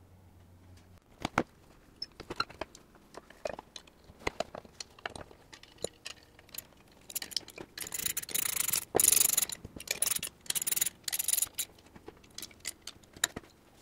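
Small metal hardware clicking and tapping, then a socket ratchet wrench clicking in several quick bursts from about seven seconds in as the bolts holding the electric motor to the belt grinder frame are tightened.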